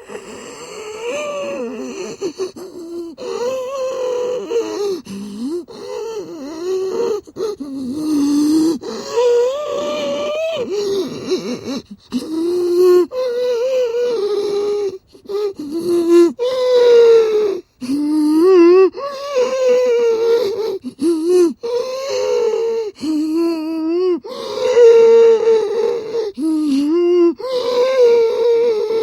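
Mummy monster sound effects: a voice giving a string of drawn-out groans and moans, a second or two each with short breaks between. Some have a trembling, wavering pitch, and there are gasping breaths among them.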